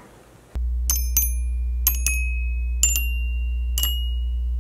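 Intro jingle: a steady low drone comes in about half a second in, with bell-like chime notes struck over it, six in all and some in quick pairs, each note ringing on and climbing slightly in pitch.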